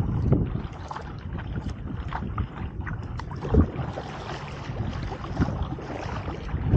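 Stand-up paddleboard paddle strokes splashing in shallow water, one about every one and a half to two seconds, with wind noise on the microphone underneath.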